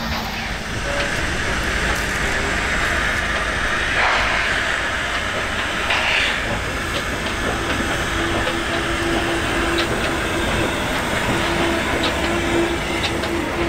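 Train of old passenger coaches behind steam locomotive No. 92.2271 (built by Krauss in 1919) moving along the track, its wheels clicking over the rails and its steam hissing. Two louder hisses come about four and six seconds in, and a steady low tone joins about halfway.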